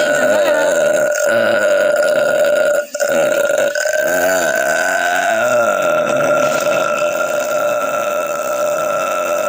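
A woman's very long, drawn-out belch, loud and sustained, breaking off for a moment about three seconds in and then carrying on.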